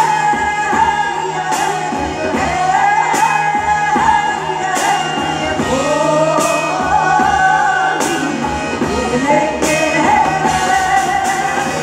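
Music with singing over a steady beat: a song with a rock band backing.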